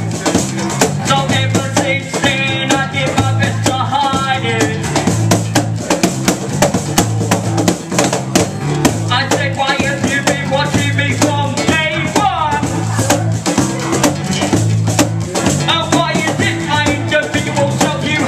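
Live acoustic band playing a groove: a strummed acoustic guitar, bass guitar and busy drum hits, with a rapper's amplified voice coming in for three stretches of lines over it.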